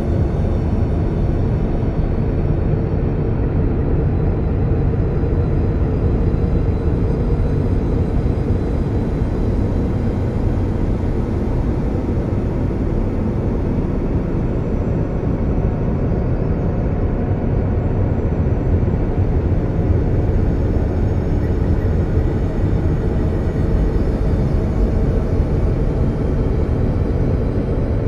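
Steady low rumbling drone from a space-style ambient soundscape, unchanging throughout, with a faint steady hum above it.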